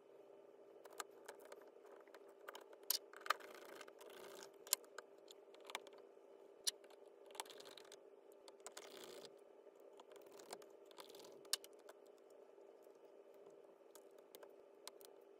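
Scattered sharp clicks and taps with short bouts of scraping: small laptop parts being handled and seated in an open plastic-and-metal laptop chassis, over a faint steady hum.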